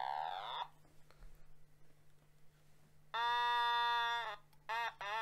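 An Otamatone playing: a short sliding note at the start, then, after a pause, a long held note that scoops up into pitch and drops off as it ends, followed by two short notes near the end.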